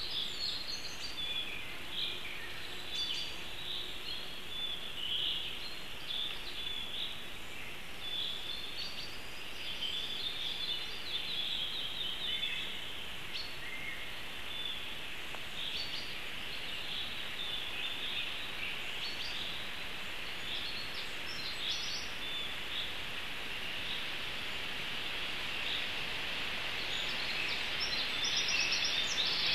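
Small songbirds singing, many short high chirping notes throughout, over a steady background hiss.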